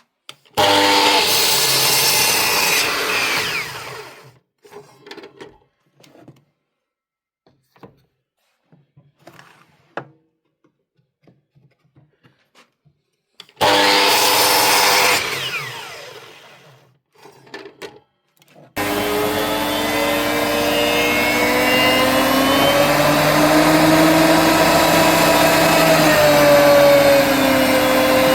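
A woodworking power tool's motor run twice for a few seconds, winding down after each, with light knocks and clicks between. About two-thirds of the way in it starts again and runs steadily, its pitch wavering slightly.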